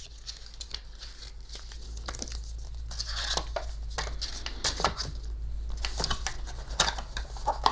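Paper rustling and light clicks as a printed booklet and its packaging are handled, over a steady low hum.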